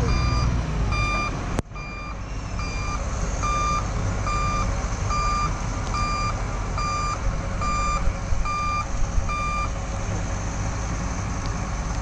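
Dump truck's reversing alarm beeping about twice a second while it backs up, over the low rumble of diesel engines. The beeping stops near the end. There is one sharp click about a second and a half in.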